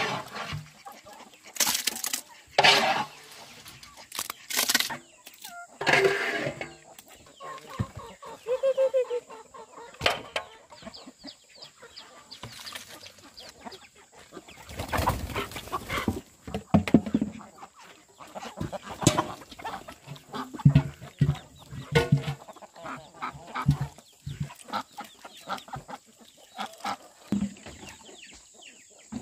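Chickens clucking, with irregular sharp knocks and clatter among the calls.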